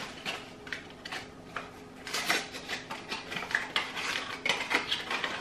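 Packaging of a small mystery box crinkling and tearing as it is opened by hand, in a rapid string of short crackles.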